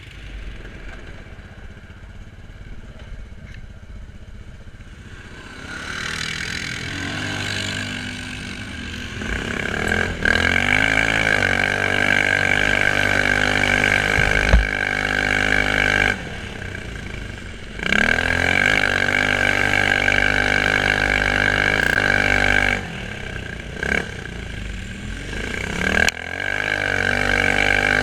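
Quad bike (ATV) engine revving on the throttle. It is quiet at first, then climbs in pitch about ten seconds in and holds at high revs. It falls back twice and rises again as the throttle is let off and reopened.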